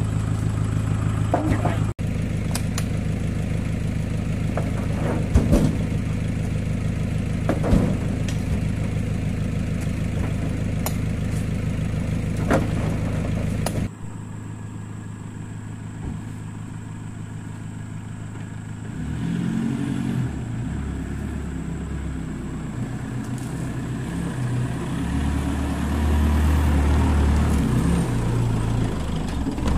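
Toyota Hilux pickup engine running steadily while oil palm fruit bunches are thrown into its bed, landing with several sharp thuds. About fourteen seconds in the sound changes abruptly, and from about nineteen seconds in the pickup is driving along a rutted dirt track, its engine working harder as it carries its load of fruit bunches and getting louder near the end.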